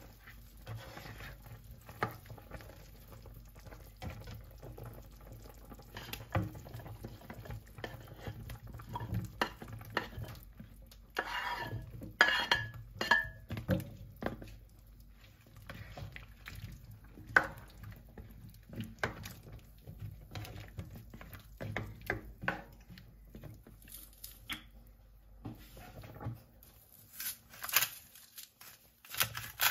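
A plastic spatula stirring and scraping in a nonstick frying pan of chicken in simmering broth, with irregular knocks and light splashes. Around the middle comes a cluster of louder knocks as cut vegetable chunks are dropped into the pan.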